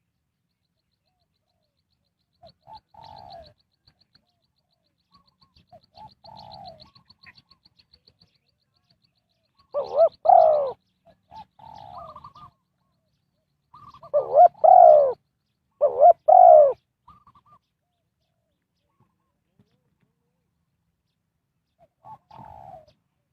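Spotted dove cooing in short, repeated phrases of downward-sliding notes. Some phrases are faint; the loudest come about ten seconds in and again around fifteen to sixteen seconds. A faint, rapid high ticking trill runs through the first part.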